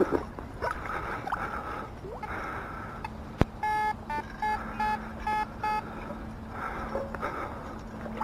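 Metal detector giving a target signal while searching underwater: a sharp click, then one longer beep followed by several short beeps, over water sloshing.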